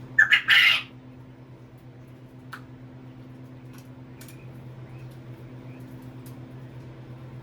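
A quail crowing once near the start: a short, harsh call of two quick notes and a longer rasping one. A steady low hum runs underneath, and a few faint clicks follow.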